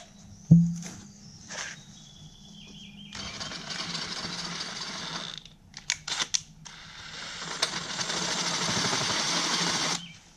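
Cordless drill boring into a jet ski pump housing, run in two stretches with a pause and a few clicks between. A sharp knock about half a second in.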